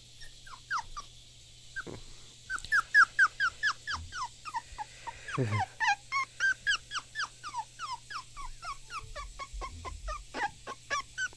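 Puppy whining in a quick string of short, high-pitched cries, each falling in pitch, about three or four a second, with a few scattered cries at first and one longer drawn-out cry partway through.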